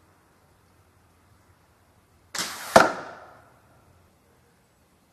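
A shot from a slingshot-powered toilet brush rifle: a rushing release a little over two seconds in, then about half a second later a sharp, loud hit as the brush-and-nail projectile strikes the plywood target.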